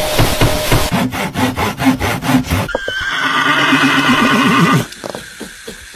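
Cartoon horse sound effects: a quick run of clip-clop hoofbeats, about five a second, then a long horse whinny with a shaking pitch that cuts off about five seconds in.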